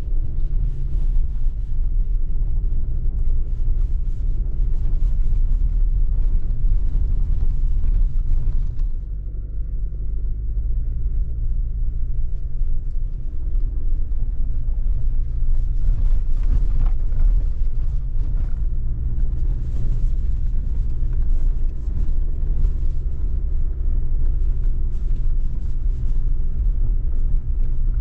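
Truck driving along: a steady low engine hum with road rumble.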